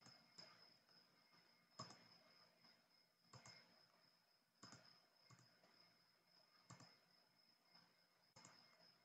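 Faint computer mouse clicks, a sharp click or quick pair of clicks every second or two, over near-silent room tone with a faint steady high whine.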